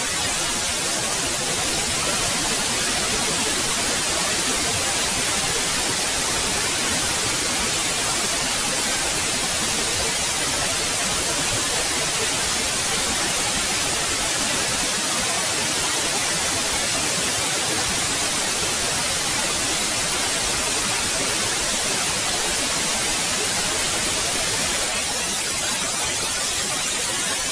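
Steady white noise: an even, unbroken hiss across the whole range, brightest in the treble.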